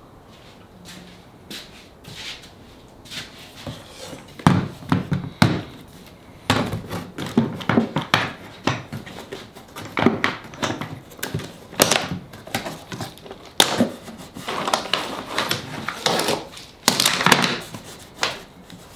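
Irregular wooden knocks, taps and thumps as a freshly glued plywood drawer box and tools are worked on a workbench, starting a few seconds in and coming thickest near the end. The box is stuck, seemingly glued to the bench.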